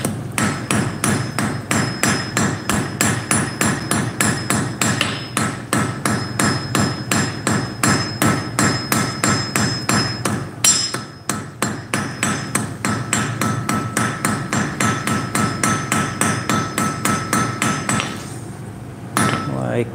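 Blacksmith's hand hammer striking hot iron on an anvil in a fast, even rhythm, about three blows a second, with the anvil ringing through the blows. The blows pause briefly just past halfway and stop shortly before the end.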